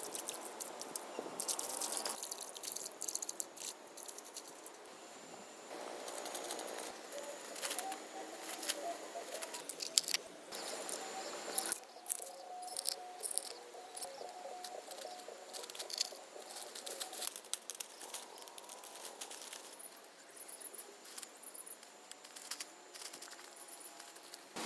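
Scattered clicks, knocks and rustling from hand work, with faint pitched chirping in the middle part.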